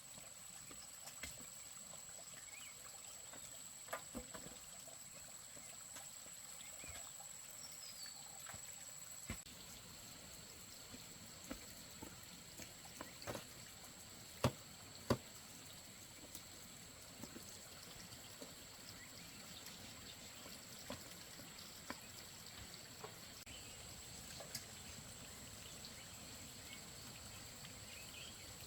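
Faint trickling and pouring water, with scattered small clicks and splashes and a thin steady high tone behind. Two sharper clicks come close together a little past the middle.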